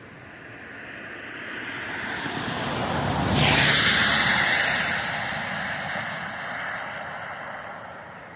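A car passing by: its tyre and road noise swell up, peak about three and a half seconds in with a falling hiss as it goes past, then fade away.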